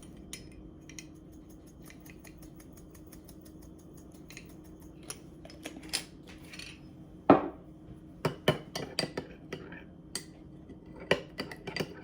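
Spoon clinking against a bowl while melted garlic butter is stirred with seasoning: scattered light clicks, one loud clank about seven seconds in, then quick runs of clinks.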